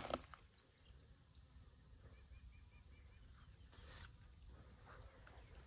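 Near silence: quiet outdoor ambience, with a brief rustle at the start and a faint run of about five quick chirps a little over two seconds in.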